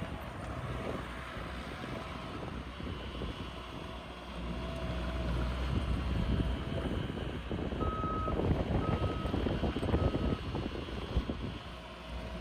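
Bobcat T595 tracked skid steer's 74 hp diesel engine running as the machine operates, getting louder about four seconds in. Near the end its backup alarm beeps three times, about a second apart.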